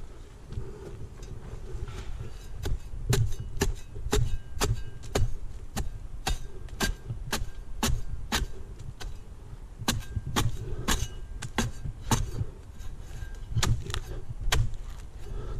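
Repeated sharp strokes of a pruning blade cutting into palm fronds, about two a second at an uneven pace, over a steady low wind rumble on the microphone.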